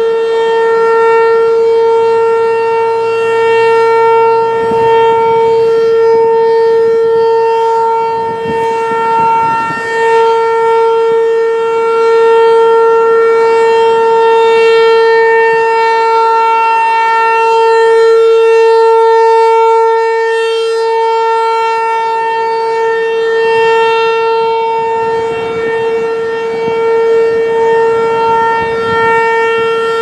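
Federal Signal 508 outdoor warning siren sounding the steady alert signal: one unwavering tone whose loudness slowly swells and fades as the rotating head turns toward and away.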